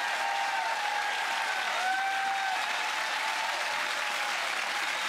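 Studio audience applauding steadily at the end of a song.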